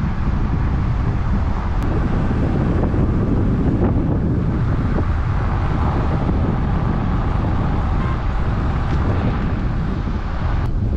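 Wind buffeting the camera's microphone: a loud, steady, deep rumble with no other sound standing out.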